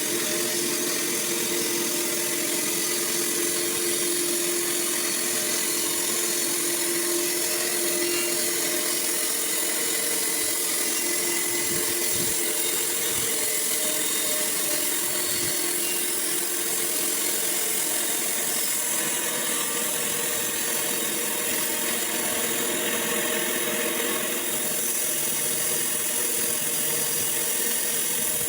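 Sawmill running steadily, its saw cutting through wood.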